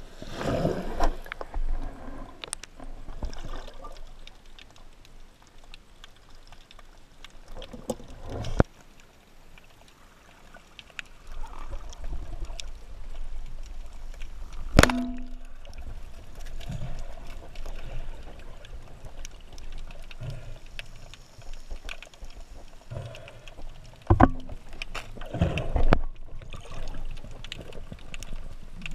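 Underwater sound heard through a camera housing: water rushing and sloshing past as the diver swims, with scattered small clicks and one sharp loud click about halfway through.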